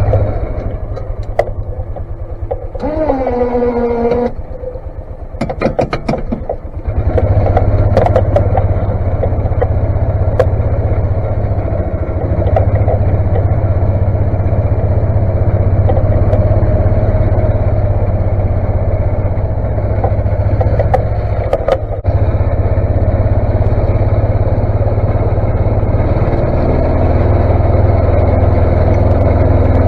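Snowplow vehicle's engine running steadily while plowing snow, getting louder about seven seconds in. A short whine rises and falls about three seconds in.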